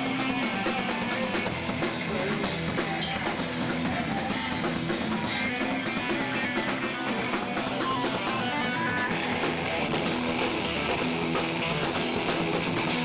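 A rock band playing live: electric guitar over a drum kit.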